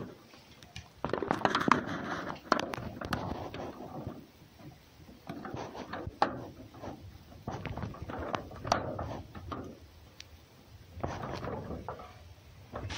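Irregular scrapes, knocks and rustling on a wooden box as a fox moves about on its plywood lid, with a few sharp clicks.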